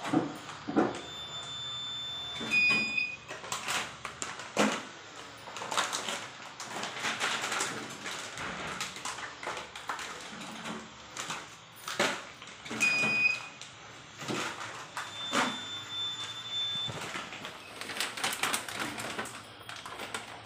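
Automatic idli/dosa batter filling machine at work while plastic pouches are filled by hand: irregular clicks and knocks, with a few high electronic beeps and two longer steady beep tones from the machine.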